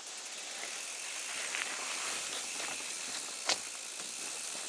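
Loaded touring bicycle rolling over a rough gravel road: a steady rush of tyre and ride noise, with one sharp clack about three and a half seconds in.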